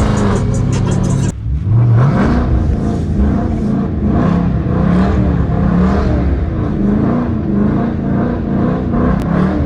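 Dodge Challenger R/T's V8 running loud through a straight-piped exhaust. Just over a second in the sound drops off sharply, then the revs climb and the note rises and falls in quick repeated surges.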